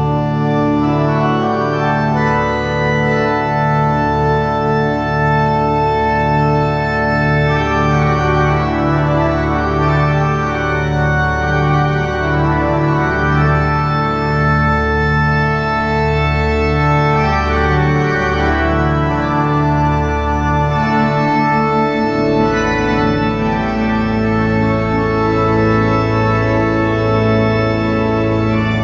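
Organ music of long, held chords over a deep bass; the bass moves to a lower note about 22 seconds in.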